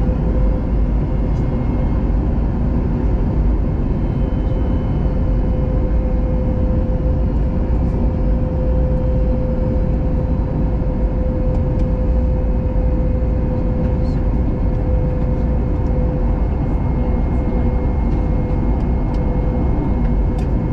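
Jet airliner cabin noise during the descent to land: a steady rumble of engines and rushing air, with a steady hum and a fainter high whine on top.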